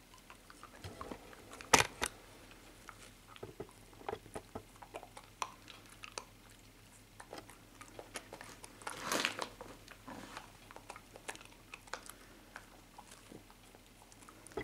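A Tibetan terrier chewing and crunching small dog treats: irregular bites, with one sharp crunch about two seconds in and a burst of crunching around nine seconds.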